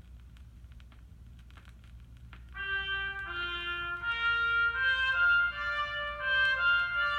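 Vinyl record playing on a JVC QL-Y66F turntable: scattered clicks and crackle from the stylus in the lead-in groove over a low hum, then about two and a half seconds in a brass-led tune of held notes begins.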